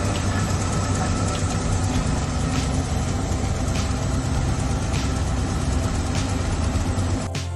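A vehicle engine running steadily, with a faint regular tick a little over once a second; music takes over near the end.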